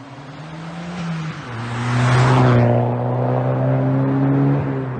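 Car engine running at a steady note that drops in pitch about a second in, swells with a rush of noise around the middle, and shifts pitch again near the end.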